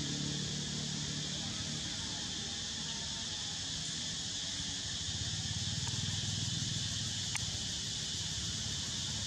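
Steady insect chorus, a high, even shrill that holds throughout. A low hum underneath fades out about two seconds in.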